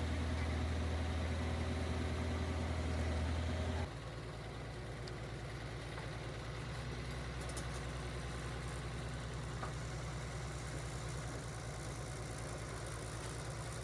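An engine idling steadily with a low hum. About four seconds in, the sound switches abruptly to a quieter, lower, pulsing engine drone.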